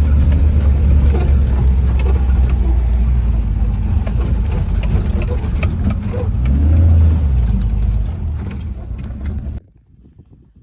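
Off-road vehicle's engine running as it drives over rough ground, with a steady low rumble and scattered knocks and rattles. The engine rises briefly about seven seconds in, then the sound cuts off about a second before the end.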